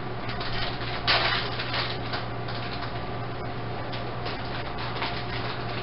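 Plastic bag of shredded cheese rustling and crinkling in irregular bursts as cheese is sprinkled, loudest about a second in, over a steady low hum.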